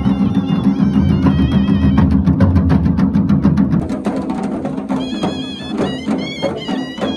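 Traditional Himachali procession music: drums beaten in a rapid, steady rhythm. About four seconds in the drumming drops in level and a high, wavering melody joins it.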